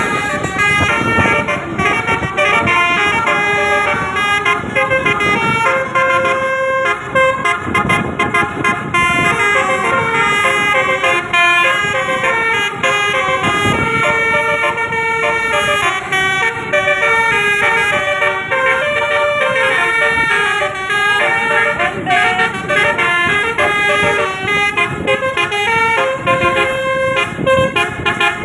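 A bus's Basuri musical air horn playing a continuous tune of quickly changing notes.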